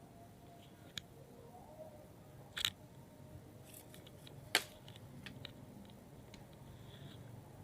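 A few faint, scattered clicks and ticks over a low background hum. The loudest comes about halfway through.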